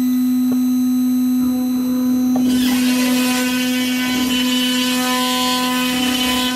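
CNC router spindle running at speed with a steady whine. About two and a half seconds in, the quarter-inch end mill starts cutting into the wood, adding a rough, rasping hiss over the whine.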